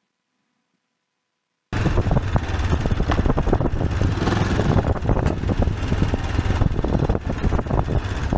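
AJP PR7 motorcycle riding over a rocky dirt track: engine running under heavy wind noise, with many short knocks and rattles from the bike over the stones. The sound cuts in suddenly about two seconds in, after silence.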